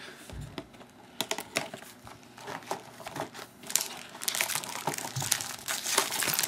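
Hands opening a cardboard trading-card box and handling the foil card packs inside: a run of crinkling, rustling and small clicks that grows busier about four seconds in.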